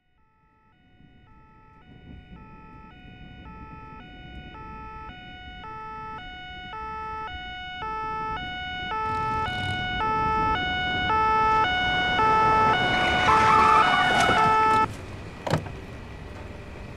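Two-tone police siren, switching between two notes roughly every half second, growing steadily louder as the vehicle approaches, with engine and road rumble rising underneath. It cuts off suddenly near the end, and a sharp thud follows.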